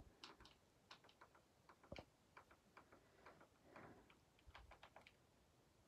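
Faint, irregular clicking of TV remote control buttons being pressed, a couple of dozen light clicks spread unevenly over a few seconds.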